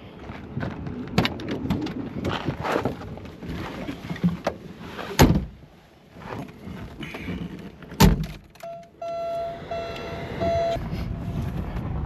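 Car doors of a Porsche 924 being handled and shut: a loud door slam about five seconds in and a second one about eight seconds in, with rustling and handling noise around them. Right after the second slam comes a short run of about four electronic beeps from the car.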